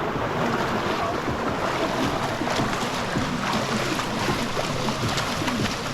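Rushing water of a waterfall, a steady even noise.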